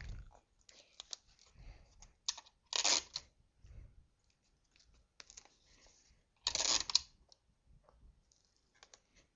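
A sheet of A4 paper being rolled into a tube and taped: scattered small clicks and crinkles of handled paper, with two short, louder rasps, about three seconds in and again near seven seconds.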